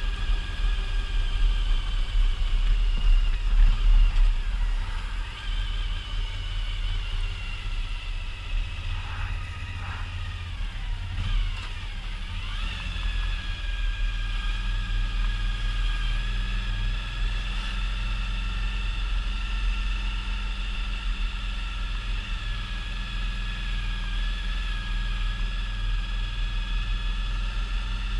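Motorcycle engine running as the bike is ridden at low speed, its pitch rising and falling with the throttle, climbing about halfway through and then holding steady. A heavy low wind rumble on the microphone runs underneath, loudest in the first few seconds.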